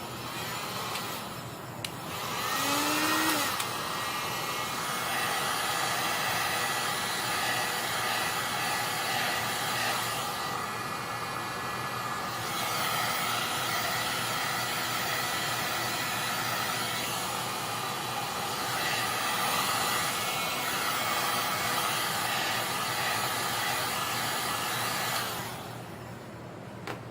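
Electric air blower of the hair-dryer kind switched on: a click, the motor spins up with a rising whine, then runs steadily with a loud even rush of air before switching off near the end.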